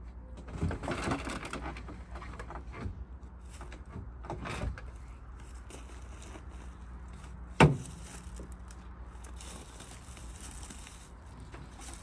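Handling noise at a station wagon's tailgate as it is reached into and pushed: rustling and scraping for the first couple of seconds, a shorter scrape about four and a half seconds in, and one sharp knock, the loudest sound, about seven and a half seconds in.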